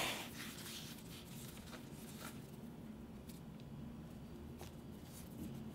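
Faint handling sounds of hands rolling and twisting soft yeast dough ropes on a wooden cutting board: a soft rubbing with a few light ticks over quiet room tone.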